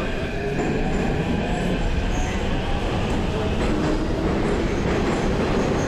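Kyiv metro train heard from inside the carriage, running as it pulls out of the station, with a steady rumble of wheels and motors and a faint rising whine as it picks up speed.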